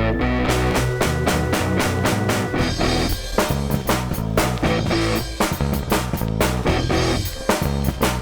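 Punk rock song playing: electric guitar, bass and a drum kit with steady, regular drum hits, no singing.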